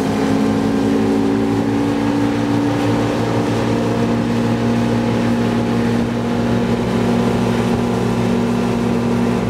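A tow boat's engine running steadily at speed, one even drone, over the rush of water and wind.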